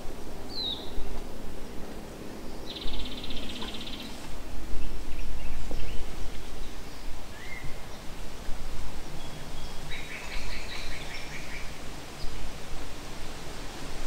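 Yellow-breasted chats and other songbirds calling at intervals: a short falling whistle, rapid rattling series of notes and single short notes. Underneath is wind rustling through the trees with rumble on the microphone, swelling about five seconds in, and a low drone through the first half.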